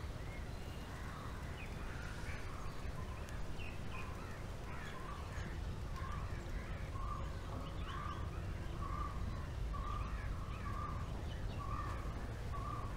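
Crows cawing repeatedly over steady outdoor background noise, the short calls sparse at first and coming about once or twice a second from about halfway through.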